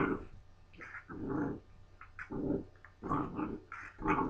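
Doberman and blue nose pit bull puppies play fighting, growling in a series of short bursts about one a second.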